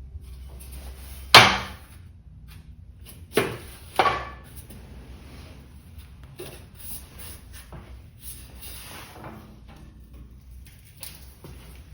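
Sheet metal and flange-brake parts being handled: a loud knock about a second and a half in, then two more close together near four seconds, each with a short ring, amid faint shuffling and rubbing.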